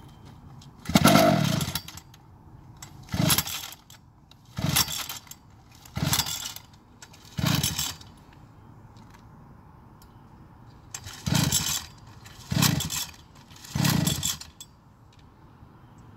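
Small two-stroke engine of a Goped go-kart being pull-started: eight short bursts of recoil-starter cranking, five in a row, a pause, then three more, without the engine catching and running.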